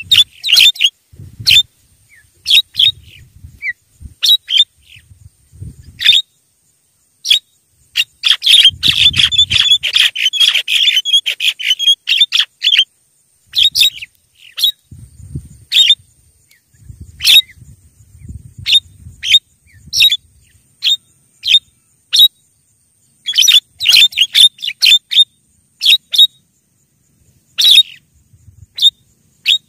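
Javan myna (jalak kebo) calls: a run of short, sharp, harsh notes, with a dense stretch of rapid chattering about eight to thirteen seconds in.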